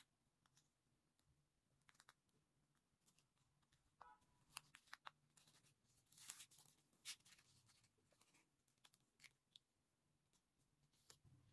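Near silence, with faint scattered ticks and short rustles of grosgrain ribbon being handled and hand-sewn as thread is drawn through it, a longer rustle about six seconds in.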